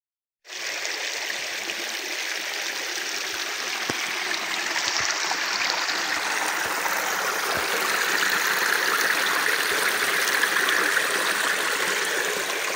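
A small creek running over rocks in a shallow cascade: a steady rushing trickle. It cuts in after a brief silence about half a second in and grows a little louder later on.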